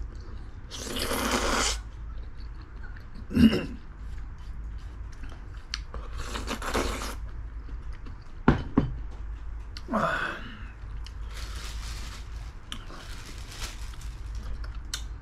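A person eating spicy braised chicken: chewing, with three loud noisy bursts about a second long and a few sharp clicks.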